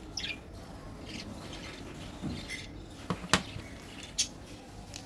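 A few light clicks and taps from hands handling candy and its packaging, the sharpest a little after three seconds in and another about a second later.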